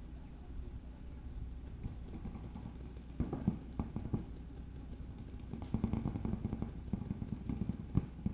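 Paintball markers firing in rapid volleys: a flurry of sharp pops about three seconds in and another running from about six seconds on, over a low steady rumble.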